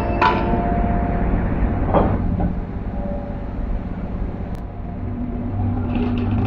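Crane machinery running with a steady low hum as a clamshell grab bucket works in a ship's hold of bulk soybeans. Sharp metal clanks come near the start and about two seconds in, and lighter rattles follow near the end.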